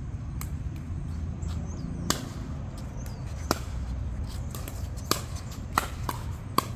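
About five sharp knocks or smacks at irregular intervals over a steady low rumble.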